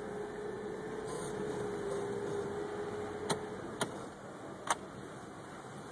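Jeep running slowly down a dirt trail, heard from inside the open cab: a steady drone with a faint whine that fades out about three and a half seconds in, and three sharp knocks from the vehicle rattling over the bumps.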